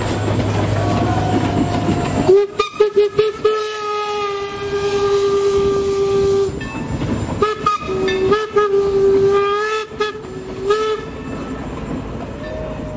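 Steam locomotive's whistle blowing over the noise of the passing train: a few short toots, then one long blast of about three seconds, then a run of short toots and a last one near the end.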